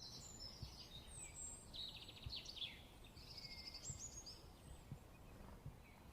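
Small birds chirping and trilling, faint, with several short high calls and two quick rattling trills in the first four seconds, over a low background rumble.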